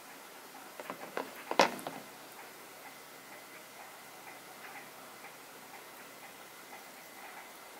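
Black tourmaline (schorl) mineral specimens being handled: a short cluster of hard stone clicks and knocks about a second in, the loudest near the middle, as one specimen is put down and another picked up. Faint light ticks follow.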